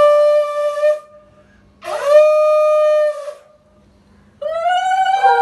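Conch shell (shankha) blown in three long blasts, each scooping up in pitch at the start before holding steady; the third begins near the end and carries on. It is sounded to accompany the aarti of the puja.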